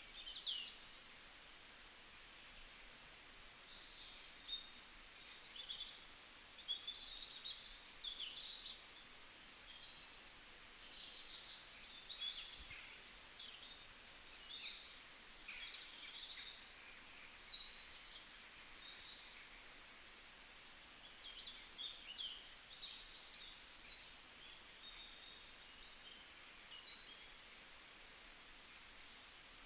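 Small birds singing, with many short, high chirps and trills in quick, varied phrases that overlap, over a faint steady hiss.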